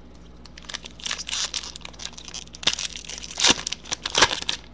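Foil wrapper of a sealed trading-card pack crinkling and tearing as it is picked up and ripped open by hand, in irregular crackles with the loudest bursts near the end.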